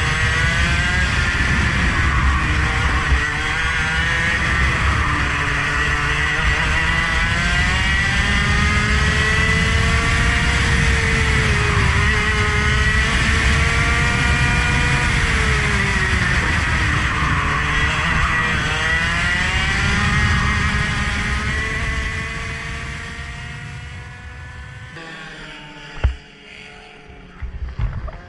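A vehicle's engine lapping a circuit under hard use, its pitch climbing and dropping over and over with gear changes and braking. After about 22 seconds it falls away to a much quieter, lower sound, with one sharp knock at about 26 seconds.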